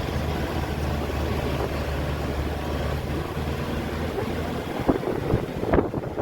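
An engine humming steadily under wind noise on the microphone; the low hum fades about four seconds in and irregular knocks and rustles follow near the end.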